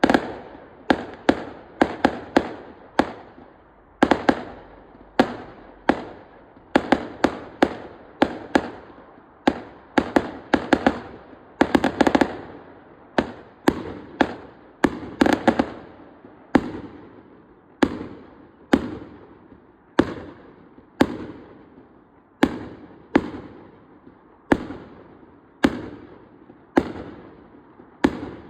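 Fireworks display: a steady run of sharp bangs from shells bursting overhead, about one or two a second, each with an echoing tail. The bangs come thickest near the start and in the middle, then settle into a more even beat.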